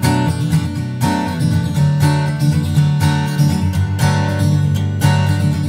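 Background music: strummed acoustic guitar, with strong strokes about once a second.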